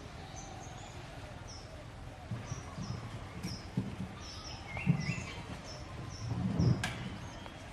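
Small birds chirping repeatedly in short high notes, with low thumps and rustling in the second half and one sharp click near the end.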